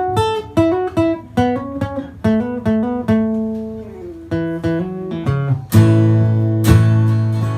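Acoustic guitar playing an instrumental intro of picked notes and short chords. About six seconds in, the sound gets fuller and louder as bass and strummed chords come in.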